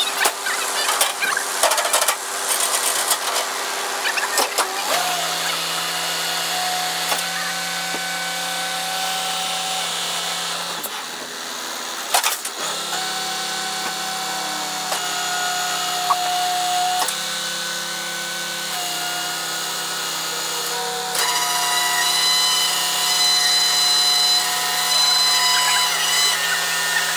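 Tilt-tray tow truck's hydraulics and winch running as a car is let down the tray: a steady mechanical whine that shifts in pitch every few seconds and grows louder near the end.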